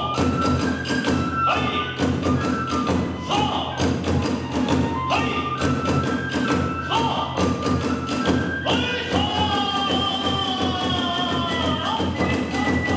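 Kagura hayashi accompaniment: rapid drum beats and clashing hand cymbals drive a fast rhythm under a transverse bamboo flute melody that holds and slides between notes.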